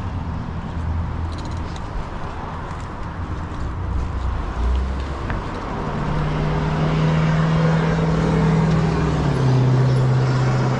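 Road traffic with a motor vehicle's engine running close by: a low steady hum that comes in about six seconds in and drops to a lower pitch near the end, over a constant rush of traffic noise.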